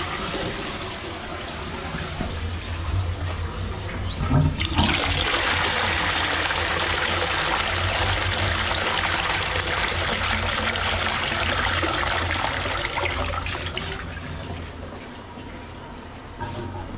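Toilets being flushed: water rushing into the bowl and draining away. A fresh flush starts about four and a half seconds in, just after a short knock, runs strongly for about eight seconds and then dies down. This is a flow test after a blockage was plunged clear, and the water is going away freely.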